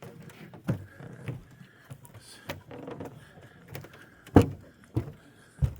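Irregular dull knocks and thumps, about six in all, the loudest about four and a half seconds in.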